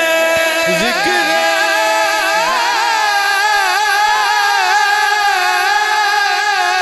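Naat singing: a male voice drawing out one long, ornamented note of the refrain, wavering and bending in pitch, then dipping slightly near the end.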